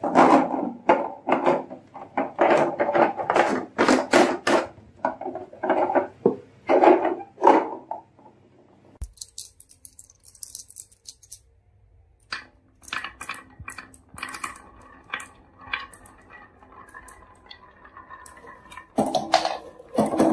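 Glass marbles clicking and knocking. A run of sharp clicks and knocks for the first eight seconds, then light sparse ticks, and about a second before the end a loud dense clatter of marbles rolling down a carved wooden wavy track.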